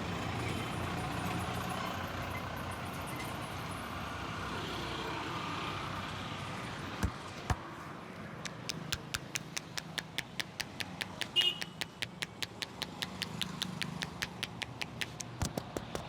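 A massage given by rapid hand tapping: a couple of sharp slaps, then from about halfway a fast, even run of sharp slaps, about six a second. Street traffic noise runs underneath.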